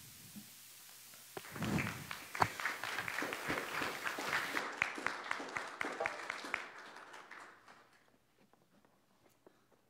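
Audience applauding: many hands clapping, starting about a second and a half in, going strong for several seconds, then thinning and dying away.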